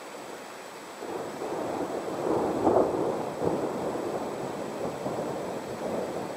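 Thunder rolling from a thunderstorm: a rumble that builds about a second in, is loudest around the middle, then slowly fades.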